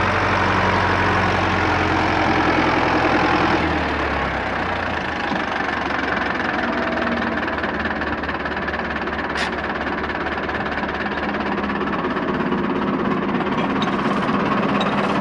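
Diesel engine of an old Fendt tractor running steadily, its note shifting slightly about four seconds in.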